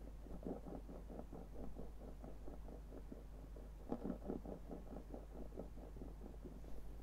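A lens rocking on a hard surface, making a fast, uneven run of small clicking knocks, about five a second, that grows louder about four seconds in. A steady low hum runs underneath.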